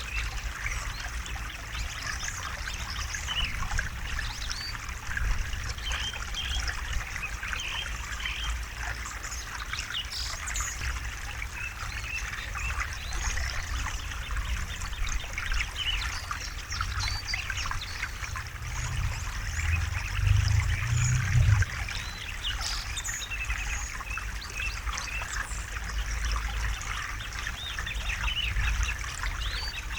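River water babbling and trickling steadily over rocks. A low rumble swells briefly about two-thirds of the way in.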